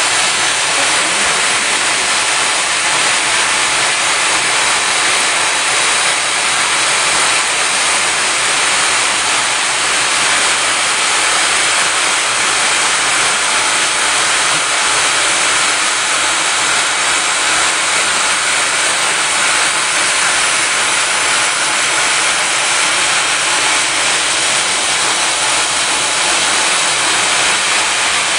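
Friction stir welding machine at work on aluminium, its tool spinning in the plate while cooling nozzles blow at it: a steady, even hiss with no change in pitch or level.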